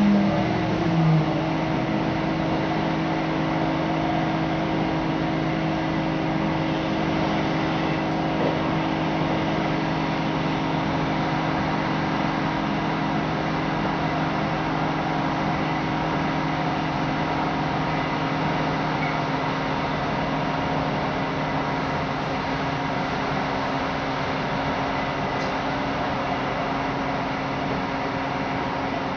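Passenger train running, heard from inside the carriage: a steady rumble of wheels on the rails with a steady low hum underneath.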